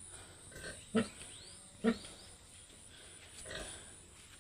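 Pigs grunting: two short grunts about a second apart in the first two seconds, with softer grunts before and after.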